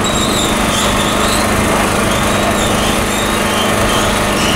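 A loud, steady motor-like drone with a constant low hum.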